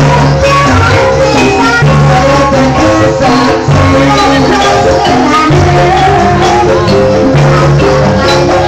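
Loud Banyumasan gamelan music of the kind played for an ebeg/lengger dance: quick, dense pitched percussion notes over low held tones.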